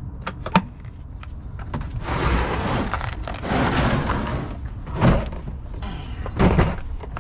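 Hard plastic Milwaukee Packout tool boxes being unstacked: a couple of latch clicks, a long scrape as a box is dragged off the stack, then several knocks as it is lifted and set down.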